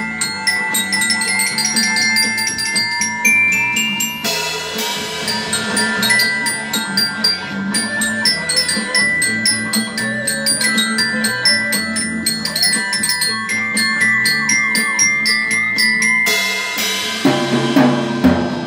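Glockenspiel-type bell kit played with mallets: a quick, continuous run of ringing metal notes carrying a melody. A cymbal crash comes near the end.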